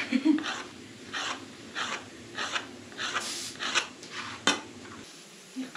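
Hands pressing and rubbing a sheet of dough on a cloth-covered board, making rhythmic swishing strokes a little more than once a second. There is one sharp click near the end.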